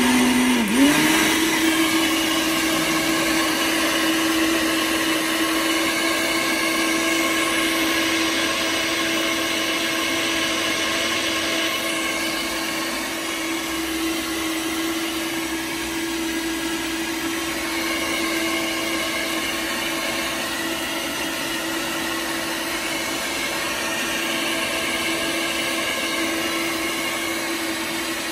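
Stainless-steel countertop blender running steadily, blending frozen fruit, almond milk and protein powder into a smoothie. Its motor pitch dips briefly about a second in, then holds steady.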